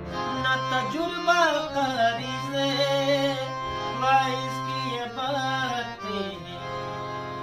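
A man singing a ghazal melody with gliding vocal ornaments, and no clear words, over a hand-pumped harmonium playing steady chords.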